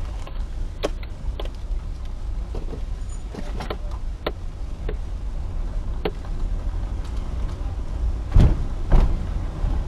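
Car driving slowly on a rough unpaved road, heard from inside the cabin: a steady low rumble of tyres and engine, with scattered sharp clicks and rattles and two heavier thumps close together near the end as the wheels hit bumps.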